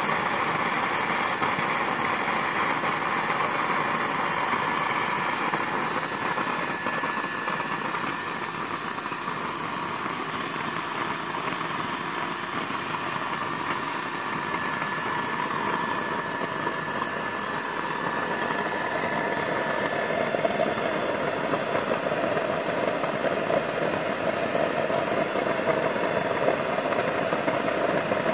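Used-oil stove burner running with a steady roar of flame and air fed in through its side pipe; the tone shifts slightly about two-thirds of the way through.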